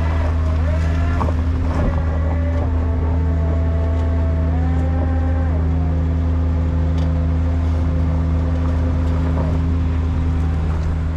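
Duramax diesel wrecker running under winch load while the winch reels in cable, a steady low engine drone with a whine over it that shifts pitch several times in the first half as the pull on the cable changes, then holds steady.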